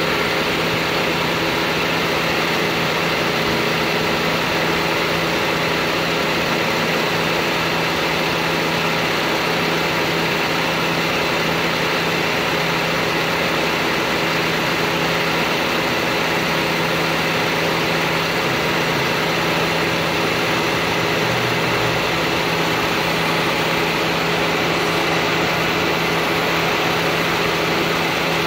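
2003 Mazda Protege's four-cylinder engine idling steadily under the hood with the A/C compressor engaged, running evenly with no change.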